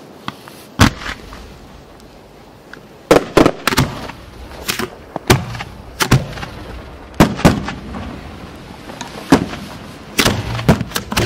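Aerial fireworks shells fired from mortar tubes, their black-powder lift charges going off in an irregular string of sharp bangs, often two or three in quick succession.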